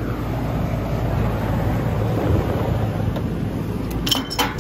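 Steady low hum of a pool pump motor running. A couple of sharp knocks come near the end.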